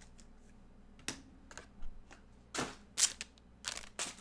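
Trading cards being handled by hand: a run of short, crisp clicks and rustles, about eight of them, starting about a second in. The loudest comes near the end.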